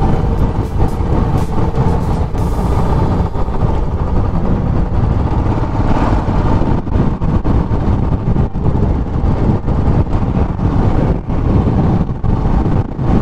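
Riding noise from a moving Royal Enfield Classic 500 motorcycle: a loud, steady rush of wind on the microphone mixed with engine and road rumble, with uneven buffeting throughout.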